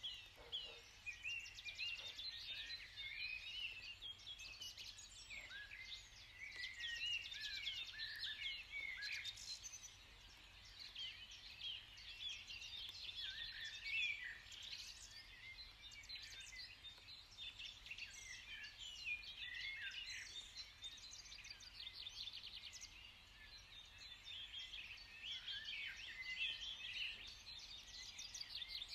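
Many birds chirping and singing together: a dense, unbroken chorus of short high-pitched chirps, trills and quick up-and-down whistles.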